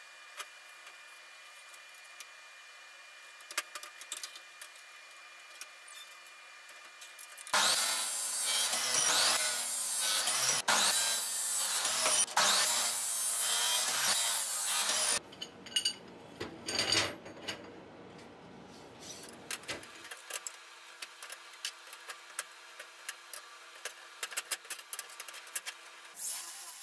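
Abrasive chop saw cutting through steel tube: a loud, harsh grinding that starts about seven seconds in, runs for roughly seven seconds with two brief dips, and stops abruptly. Scattered clicks and knocks in the quieter stretches either side of the cut.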